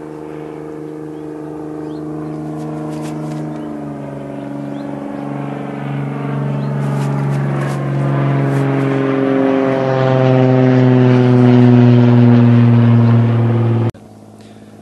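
A motor-like drone grows steadily louder, its pitch shifting slowly, then cuts off abruptly near the end.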